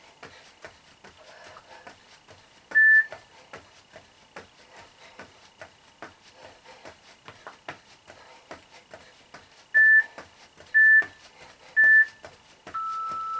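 Workout interval timer beeping: a single short beep, then three short countdown beeps about a second apart and a longer, lower final beep marking the end of the work interval. Under the beeps runs a steady rhythm of soft footfalls from jumping jacks on foam mats.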